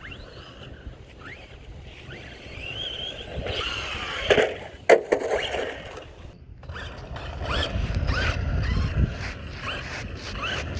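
Brushless electric motor of an Arrma Big Rock V3 RC truck whining up in short rising bursts of throttle, over a rumble of tyres on dirt. Two sharp knocks come a little past the middle.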